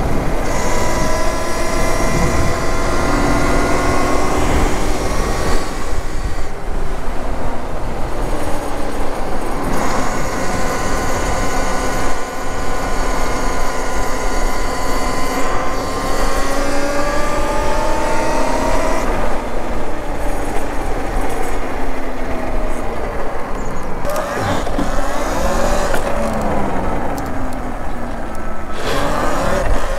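Electric motor whine from a Talaria Sting electric dirt bike under way, its pitch climbing and dropping several times as the bike speeds up and slows. A steady low rumble of wind on the microphone runs beneath it.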